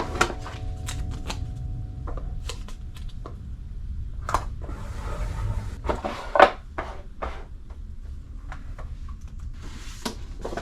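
Hands handling small objects and packing materials: scattered light taps and clicks, a stretch of rustling, and one sharper knock about six seconds in, over a steady low room hum.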